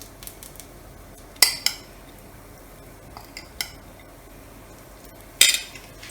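A metal utensil clinking and scraping against a dosa griddle and dish while tandoori chicken masala filling is spooned onto a dosa: a handful of short, sharp clinks, the loudest about five seconds in.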